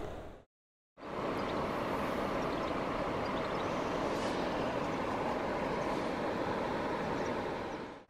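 River water rushing steadily over rocks, an even noise with no distinct events. It fades in after a brief silent gap about a second in and fades out near the end.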